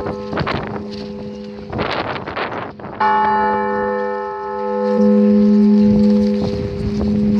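Church bells ringing: a large bell struck about three seconds in and again around five seconds, its low hum and overtones ringing on long after each strike, with short noisy clangs in between.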